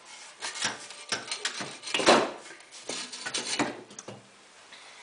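Exhaust expansion chamber of a Ski-Doo MXZ 440 snowmobile being pulled and shifted out of its mounts by hand: a run of scraping, rubbing and knocking noises, loudest about two seconds in.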